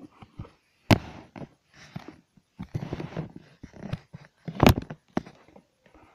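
Handling noise from the recording device being moved and bumped: rustling and scraping broken by two sharp thumps, about a second in and again near five seconds.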